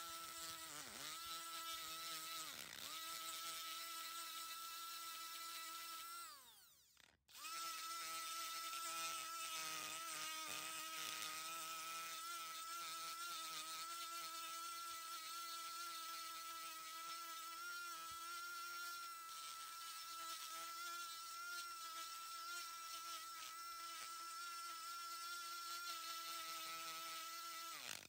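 Old Dremel 370 rotary tool whining at high speed as a small spherical burr grinds into a pine knot, a motor the owner thinks has a bearing going out. The pitch sags briefly a couple of times under load, and about seven seconds in it falls away and cuts out for a moment before the whine comes back.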